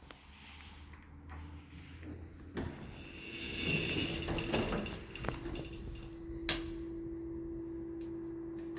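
Elevator machine-room equipment running: a steady mechanical hum that grows busier and louder partway through, then settles into one steady tone. A single sharp click about six and a half seconds in stands out.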